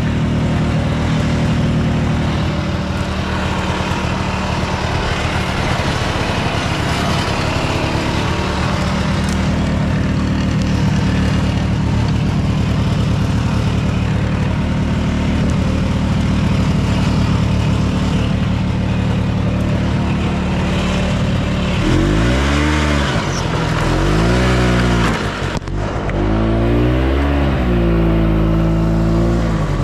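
Yamaha Bravo snowmobile's single-cylinder two-stroke engine running steadily under way. Over the last several seconds the revs rise and fall several times, with a brief drop in between.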